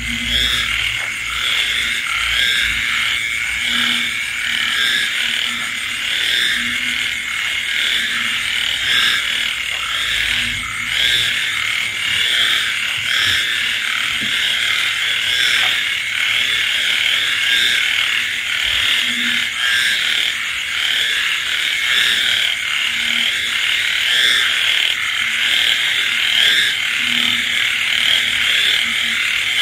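A dense chorus of frogs calling without pause, with a steady high insect trill running through it. A deeper single call repeats every couple of seconds underneath.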